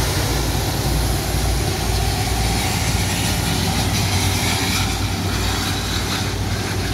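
Rolls-Royce turbofans of an Airbus A330-343 running at taxi power as the airliner turns on the apron: a steady, loud jet engine noise with a low rumble underneath.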